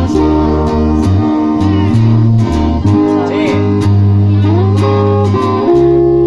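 Instrumental band passage: an electric guitar plays a melody with bent notes over a steady electric bass line.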